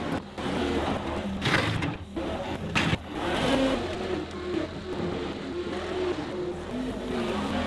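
John Deere 325G compact track loader's diesel engine running steadily while the machine drives on its rubber tracks. There are two sharp clanks in the first three seconds.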